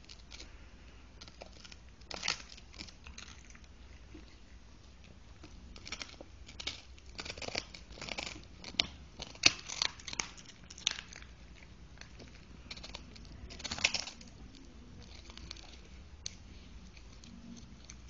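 A Cavalier King Charles Spaniel crunching and gnawing on a microwaved K9 Highland cheese dog chew: irregular crisp crunches, sparse at first, busiest from about six to eleven seconds in, with another burst near fourteen seconds.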